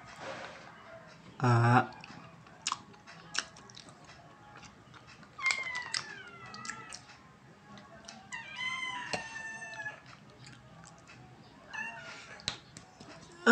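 A cat meowing, two drawn-out meows that fall in pitch about six and nine seconds in. Around them are faint chewing and clicks, and a short low vocal grunt about a second and a half in, which is the loudest sound.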